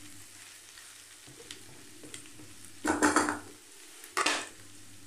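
A spatula stirring mashed potatoes into hot spices in a frying pan, over a faint sizzle. There are two louder scrapes, about three and four seconds in.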